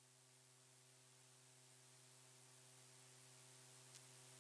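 Near silence: a faint steady electrical hum with hiss, and one faint tick about four seconds in.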